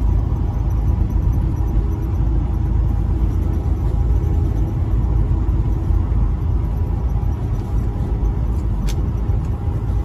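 Semi truck cruising on the interstate: a steady low rumble of engine and tyres on the road, with one faint short tick near the end.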